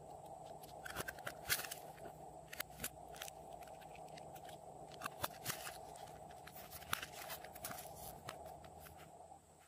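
Scattered crackles and clicks of clear plastic clay containers and trays being picked up, pressed and handled, with a few louder snaps, over a faint steady background hiss.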